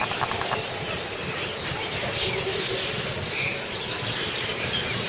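A steady outdoor hiss with birds chirping now and then, one clear chirp about three seconds in, and a short run of rapid clicks right at the start.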